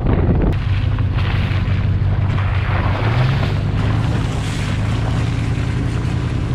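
A truck driving through a muddy puddle: a steady engine and road drone with water spraying and hissing off the front tyre. The engine pitch rises slightly about three seconds in.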